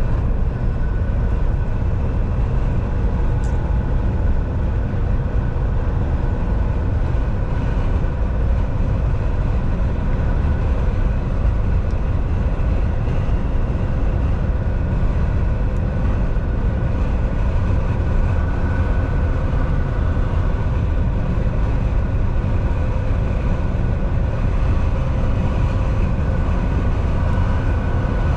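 Volvo semi truck driving at a steady pace: a continuous low engine drone with road and tyre noise and a few held steady tones above it, unchanging throughout.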